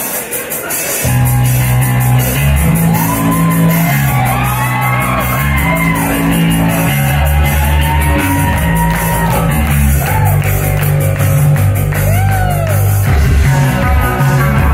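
Live post-punk synth band playing a song intro: steady drum-machine hi-hat ticks, joined about a second in by a pulsing low bass line. Crowd members whoop and shout over the music.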